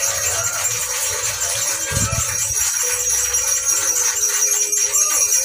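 Background music with a steady shaker-like rattle and a slow held melody.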